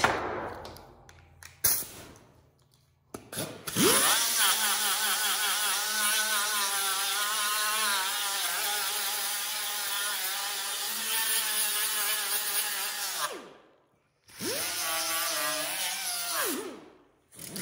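Air-powered die grinder with a small abrasive disc grinding the metal of an old bench vise: a few knocks, then the tool spins up with a rising whine and grinds steadily for about nine seconds before winding down, then a second, shorter burst of grinding near the end.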